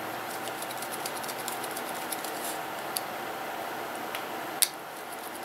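Screwdriver driving a screw into the cover of a plastic mains plug, giving a scatter of small clicks and ticks with one sharper click about four and a half seconds in, over a steady faint room hum.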